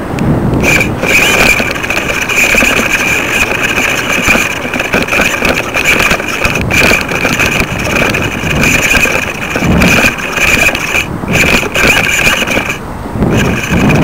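Wind buffeting the microphone of a camera rig hanging from a kite, with a steady high whistle over it that starts about a second in and breaks off briefly twice near the end.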